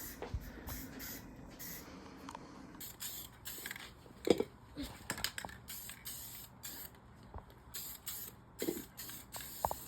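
Aerosol spray-paint can sprayed in a series of short, quick hissing bursts from about three seconds in, as touch-up coats are put on a go-kart frame.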